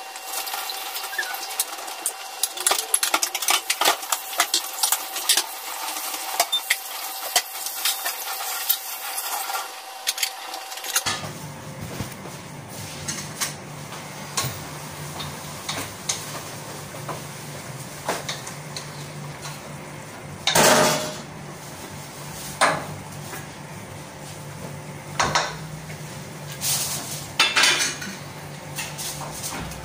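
Cooking utensils clinking and scraping against pots and pans while a dish is stirred on the stove. Many quick clicks come in the first third. Then a steady low hum starts, and a wooden stirring utensil knocks on the pan a handful of times, louder.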